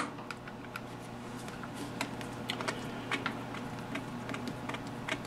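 Light irregular clicks and taps of a lathe tailstock drill chuck being gripped and turned by hand, metal on metal, with its jaws being run back.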